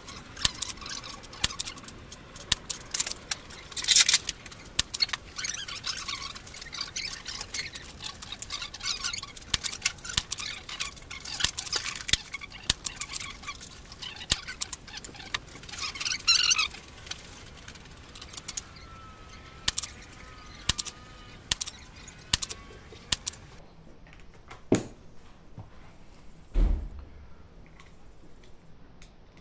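Close handling of shooting gear: a dense run of clicks, taps and rustling for about seventeen seconds, then a few separate clicks and two dull thumps near the end.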